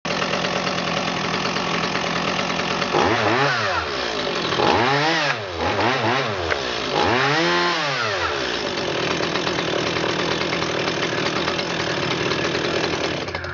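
Stihl MS 170 chainsaw's 30cc two-stroke engine idling, then revved four times, its pitch rising and falling with each blip of the throttle. It settles back to a steady idle and cuts off near the end.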